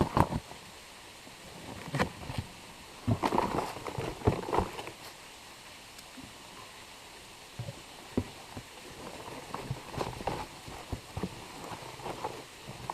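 A cardboard package being opened by hand: irregular rustling, crackling and tearing in short clusters, over the steady rush of a waterfall.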